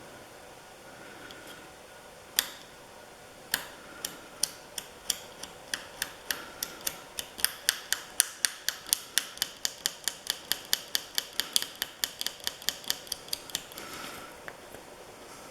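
Sharp clicking from hand work on a tractor's grease fitting: a few scattered clicks, then a steady run of about three or four a second for several seconds.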